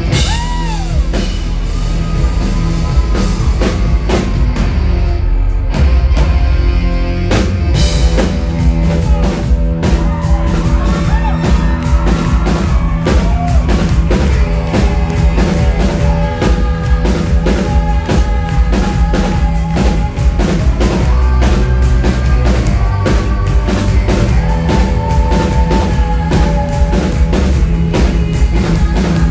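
Live rock band playing loudly, with drum kit, bass and sustained, bending instrument lines. After a thinner passage the full drum beat comes back in about seven seconds in and drives steadily on.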